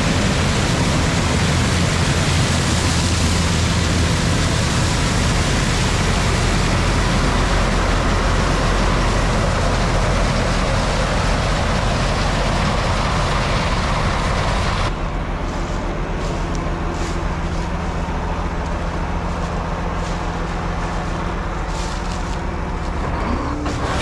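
Harvest machinery running: the steady drone of a combine harvester's and a tractor's diesel engines under a loud rushing noise. The rushing drops away about fifteen seconds in while the engine drone continues.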